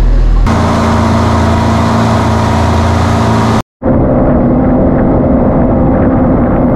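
Boat's outboard motor running steadily while the boat is under way, with rushing wind and water noise. The sound changes abruptly about half a second in and cuts out for a split second in the middle before carrying on.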